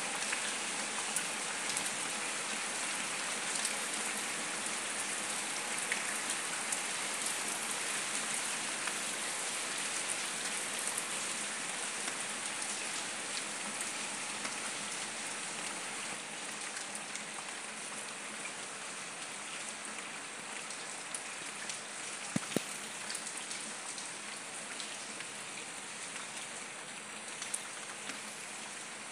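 Heavy rain falling steadily on concrete paving stones, a dense hiss of drops that eases slightly in the second half. One sharp tap stands out about two-thirds of the way through.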